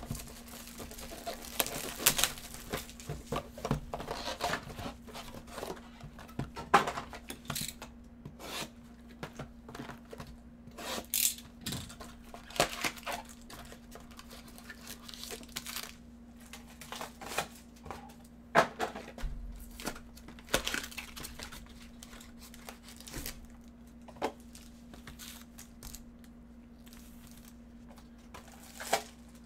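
A baseball card hobby box being torn open by gloved hands: irregular tearing, crackling and crinkling of wrapping, cardboard and foil card packs as they are pulled out and handled.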